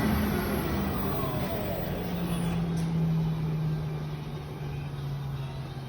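CNC router's motors running as a steady machine hum. The hum drops in pitch about two seconds in, and a fainter whine glides down at the same time, as the machine slows. The level fades gradually.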